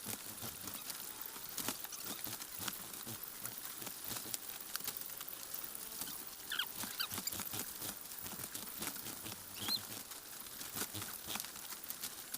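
Joper chickens scratching and tapping about inside a cardboard shipping box, a steady patter of many small clicks, with a few short, high, rising peeps about halfway through and again near ten seconds.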